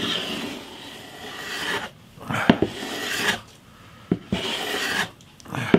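Metal bench plane shaving a rosewood fretboard by hand, pushed in a run of long strokes with short pauses and a light knock between them, the blade set at a slight angle and now taking thin shavings off the rosewood while cutting a shallow radius.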